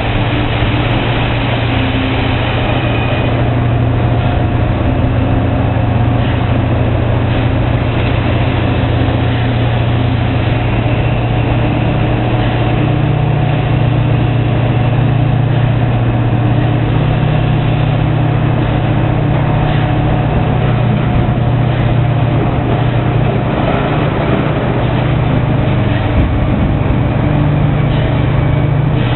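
Heavy diesel excavator engine running steadily under load while digging rubble. Its low note swells slightly from about twelve seconds in.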